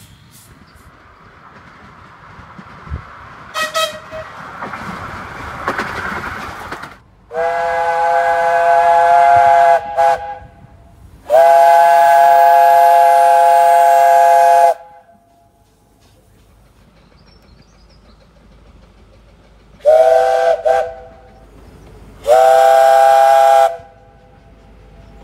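15-inch gauge steam locomotive whistles, sounded in steady, level-pitched blasts: two long blasts separated by a short pip, then near the end two short pips followed by another long blast, with steam hiss between.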